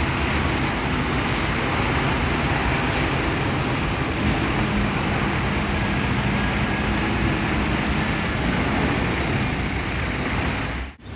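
Steady traffic noise from buses and cars, with a double-decker coach moving slowly past close by. The sound cuts off abruptly near the end.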